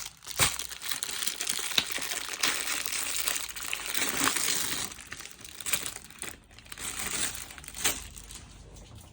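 Loud crinkling and rustling, as of packaging being handled, with scattered sharp clicks; it fades near the end.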